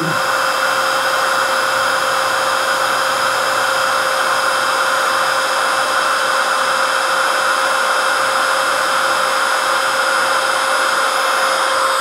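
Electric heat gun running steadily on full heat, its fan blowing a constant rush of air with a steady whine, drawing about 1,300 watts.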